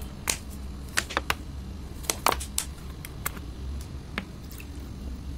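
Sharp, irregular clicks and taps of a plastic water bottle and plastic bowl being handled, about ten in all and most of them in the first three seconds, over a low steady hum.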